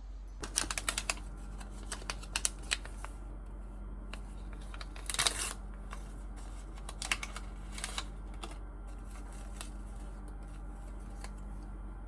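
Short clusters of light clicks and taps, like keys being pressed, with a brief rustling scrape about five seconds in, over a steady low hum.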